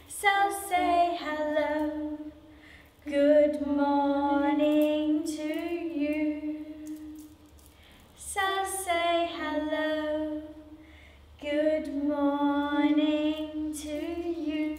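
A woman singing a children's song unaccompanied, in four phrases with long held notes.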